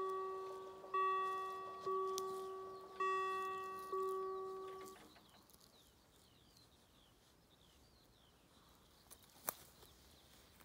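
Level crossing warning bell striking about once a second, five strikes, while the barrier arm lowers; it stops about five seconds in once the barrier is down. Faint bird chirps follow, with a single sharp click near the end.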